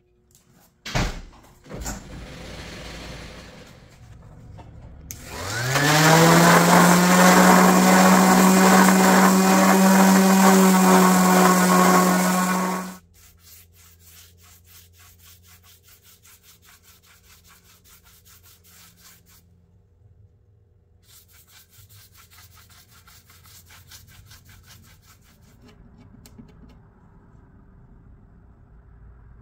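An electric power tool motor spins up over about a second, runs steadily at one even pitch for about seven seconds, then cuts off abruptly. A single knock comes about a second in, and faint scratchy brushing strokes follow the motor.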